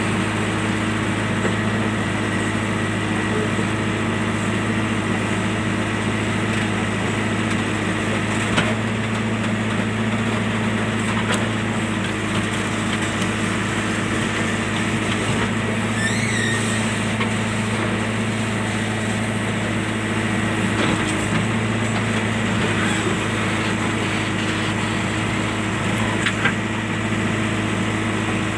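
A JCB machine's engine running steadily, with a few short clicks.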